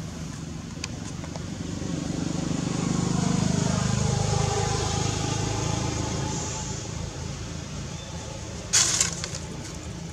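A motor vehicle passing by: its engine hum swells over a few seconds and fades, the pitch dropping as it goes. A brief sharp noise comes near the end.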